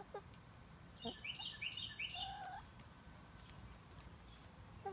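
A small songbird chirps a quick run of about six short, falling notes a second or so in, over a soft short note from a hen.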